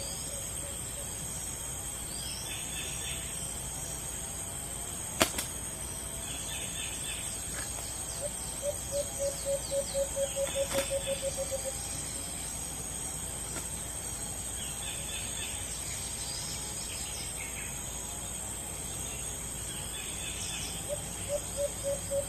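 A dove cooing in quick runs of short, even notes, about four a second, twice, among short chirps from other birds and a steady high insect drone. A single sharp click sounds about five seconds in.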